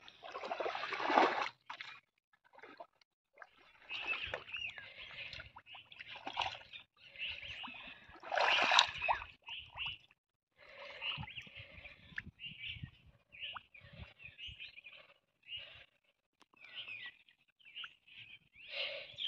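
Hands splashing and sloshing in shallow muddy water while groping for fish, in irregular bursts, loudest in the first second or so and again near the middle. Short bird chirps come in between in the second half.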